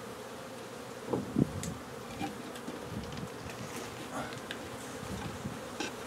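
A honeybee colony buzzing steadily as its storm-shutter cover is taken away. A couple of louder knocks sound about a second in.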